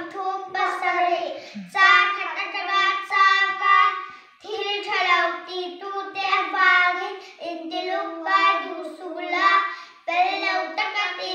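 Young boys singing together without accompaniment, holding long notes in phrases of a second or two with short breaks between.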